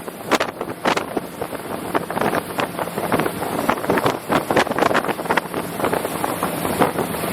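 RIB boat running at speed, its hull repeatedly slapping the water in short irregular knocks over a steady engine drone, with wind buffeting the microphone.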